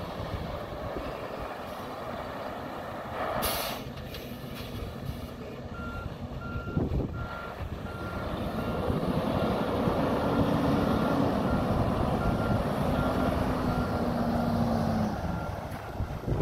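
2017 Freightliner Cascadia semi tractor's diesel engine running as the truck backs up, its backup alarm beeping at an even pace of a little over one beep a second. A brief air-brake hiss comes about three and a half seconds in, and the engine note rises and grows louder in the middle before easing off.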